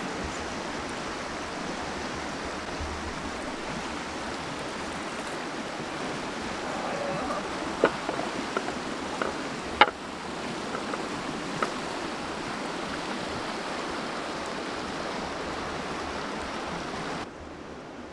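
Steady rushing background noise, with a few sharp clicks and taps in the middle from a fork and knife striking a wooden board while carving roasted lamb. Near the end the rushing drops away abruptly.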